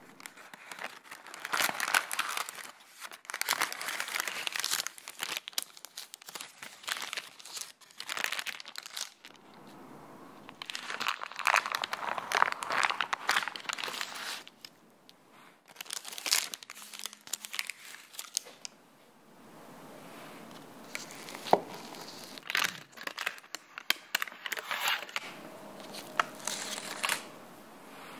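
Baking parchment paper crinkling and rustling in several long stretches as it is peeled back from a baked cheesecake, with a few sharp ticks in the later part.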